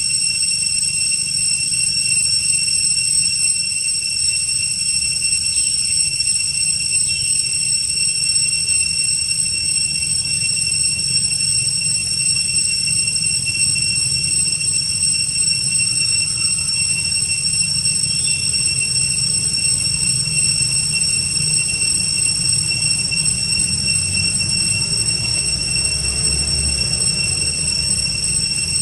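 Cicadas droning steadily in the trees: several high, unchanging pitches held without a break, over a low rumble.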